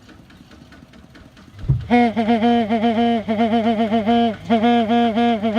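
Truck-style horn on a Kubota tractor sounding loudly from about two seconds in, one steady pitch chopped into rapid short pulses. Before it, a faint low engine idle and a short low thump.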